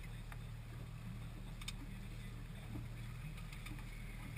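Fishing boat's engine running with a steady low drone, heard from the deck.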